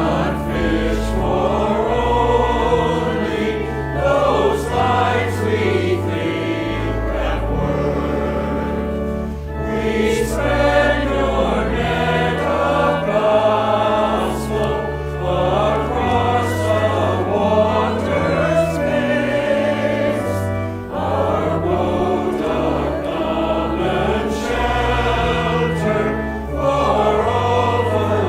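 Congregation singing a hymn in unison and parts, over an accompaniment that holds steady low notes changing every second or two.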